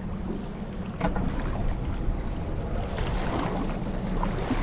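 Wind buffeting the microphone and sea water washing against a boat's hull, a steady rushing noise that gets a little louder about a second in.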